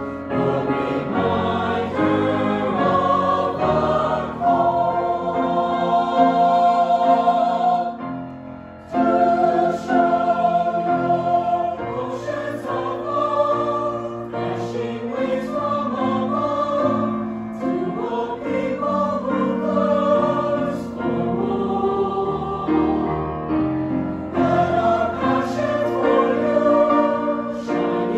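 Mixed youth choir singing a sacred song in parts, holding long chords. The singing breaks off briefly about eight seconds in, then comes back in.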